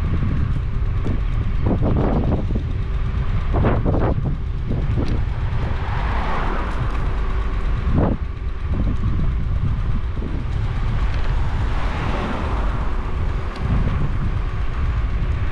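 Steady low wind rumble on the microphone mixed with road noise, as heard while riding along a road, with occasional short knocks and a faint steady hum underneath.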